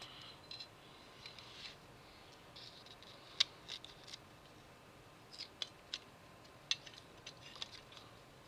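Faint scattered light clicks and scratchy rustles of small-scale handling at a workbench: a transfer sheet and plastic model parts being handled. The sharpest tick comes about three and a half seconds in.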